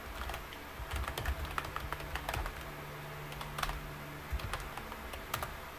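Computer keyboard being typed on: a run of quick, irregular keystrokes as a command line is entered.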